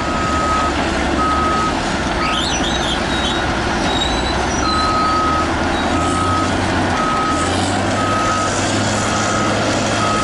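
Backup alarm on heavy equipment beeping about once a second, with a pause a few seconds in, over the steady low running of diesel engines.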